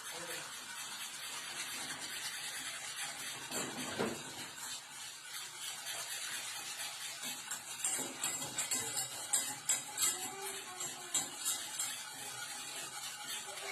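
Spoon stirring and scraping in a pot on the stove over a steady hiss, with a single knock about four seconds in and a run of light clinks against the pot in the second half.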